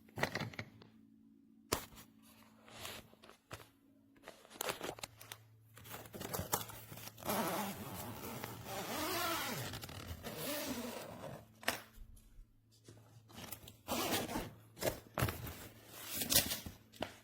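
A new softshell suitcase and its packaging being handled: scattered clicks and knocks, with a longer rustling, scraping stretch in the middle.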